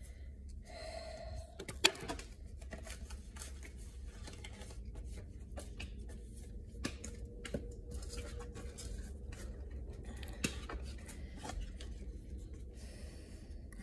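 Tarot cards being shuffled and handled: a run of quick, light papery clicks and snaps, with one sharp snap about two seconds in and another near the end.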